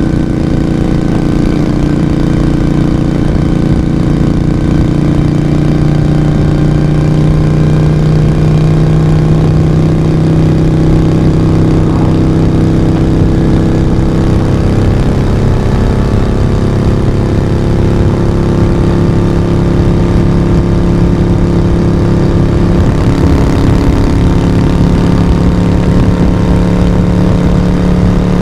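Moto Guzzi V35's air-cooled V-twin engine and exhaust running steadily as the motorcycle is ridden. The engine note drops a little about halfway through and rises again near the end.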